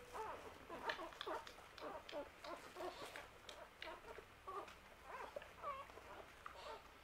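Five-day-old English setter puppies squeaking and whimpering while they nurse: many short, high squeaks overlapping one another, some rising and some falling in pitch, with soft clicks among them.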